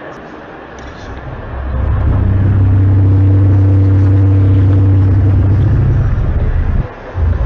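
A loud, low, steady droning hum with a fainter higher tone above it. It swells in after a quieter first second or so, holds its pitch, and breaks off briefly near the end before resuming. It is one of the unexplained 'strange sounds in the sky' recorded around the world.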